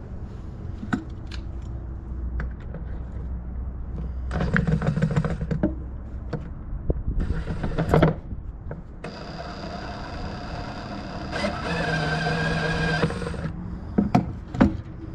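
A small electric power-tool motor runs in two bursts, a short one of about a second and a half and then a longer one of about four seconds, with clicks and knocks of metal being handled in between.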